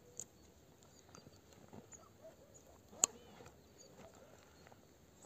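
Faint rustling and small clicks of a backpack being handled, with one sharp click about three seconds in.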